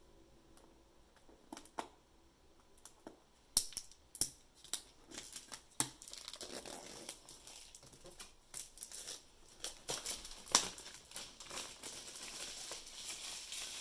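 A headset's retail box being opened by hand: a few sharp snaps and clicks, then a run of crinkling and rustling packaging that grows louder near the end.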